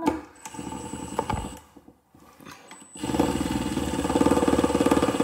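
Milwaukee M18 Fuel impact driver run twice: a short burst, then about three seconds in a longer, louder spell of rapid hammering impacts over a high motor whine. It is trying to back out a screw stuck fast in a wooden block, and the screw does not come out.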